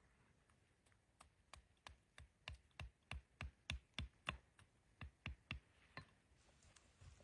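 A quick, even run of about fifteen sharp taps or knocks, roughly three a second, loudest in the middle and stopping about six seconds in.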